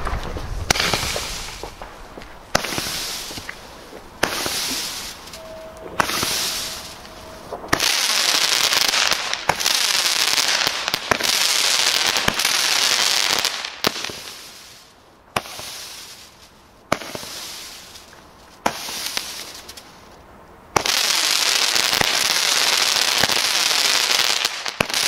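Weco Elysium 16-shot firework mine battery firing: a sharp launch bang every one to two seconds, each followed by a long hissing rush of sparks. The shots run close together near the middle and again near the end.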